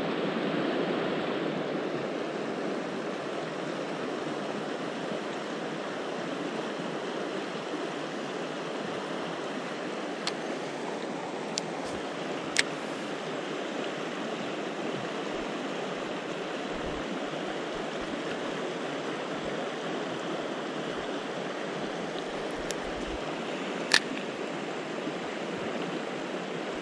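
A mountain river rushing steadily over its bed, a constant even wash of water. A few sharp clicks cut through it, three in quick succession around ten to thirteen seconds in and the loudest about twenty-four seconds in.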